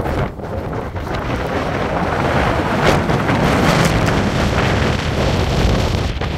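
Wind buffeting the microphone: a loud, continuous rumbling rush that swells and eases in gusts.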